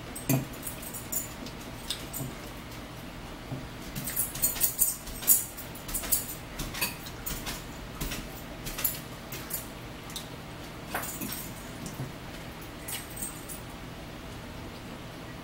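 Eating sounds from a salad meal: metal forks clicking and scraping against bowls, with close chewing of crunchy salad. A quick run of clicks comes about four to six seconds in, then scattered ones.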